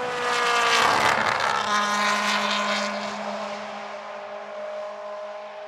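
Rally car engine at high revs passing close by, loudest about a second in, then its note holding fairly steady and fading as it drives away.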